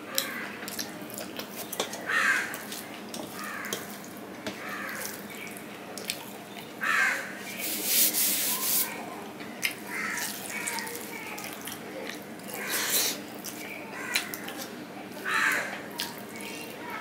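Eating by hand from a steel plate: fingers mixing rice and curry on the metal and chewing, heard as small wet clicks. Over this, a bird caws loudly and repeatedly, a short harsh call every two to three seconds.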